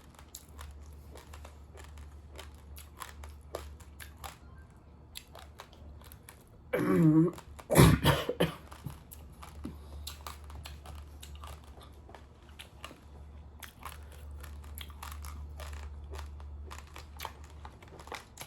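Raw long-grain rice crunched and chewed, many small crisp cracks of grains breaking between the teeth. About seven seconds in the eater coughs: a voiced cough, then a sharp loud cough and a couple of smaller ones, from a cough not yet healed.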